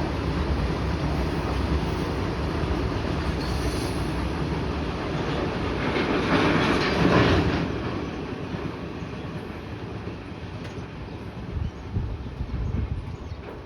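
Long freight train of oil tank wagons rolling along the track: a steady rumble and rail noise that swells to its loudest about seven seconds in, then fades.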